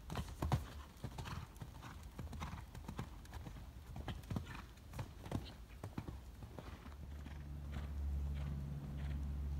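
Hoofbeats of a shod horse cantering on arena sand, with a heavier thud about half a second in as it lands from a jump. A steady low drone comes in about seven seconds in.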